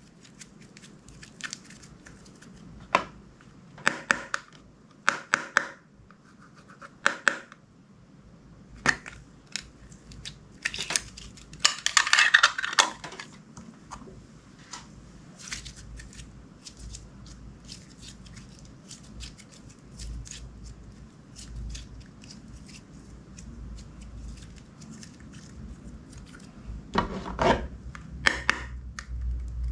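Clear slime being squished and stretched by hand, giving irregular sticky pops and crackles. There is a dense run of crackling about twelve seconds in, a stretch of only small clicks after it, and a louder cluster of pops near the end.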